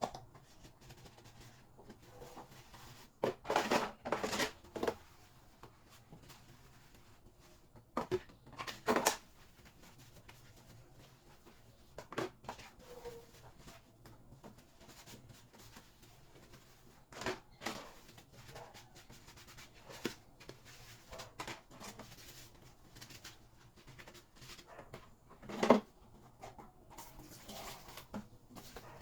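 Dishes being washed at a kitchen sink: scattered knocks and clatter of plates and utensils, with short rushes of noise, the loudest about four seconds in and near the end.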